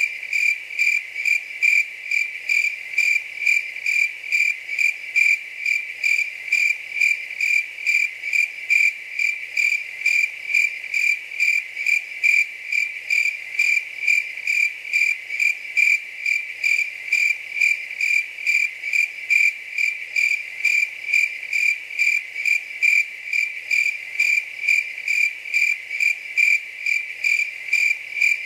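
A cricket chirping in a steady, even rhythm of short, high-pitched chirps, a few each second, without a break.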